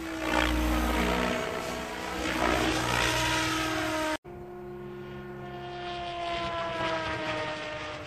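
SAB Goblin 770 electric RC helicopter in flight: the whine of its electric motor with the rush of the rotor blades, growing louder twice. The sound cuts out for an instant about four seconds in, then the whine slowly falls in pitch.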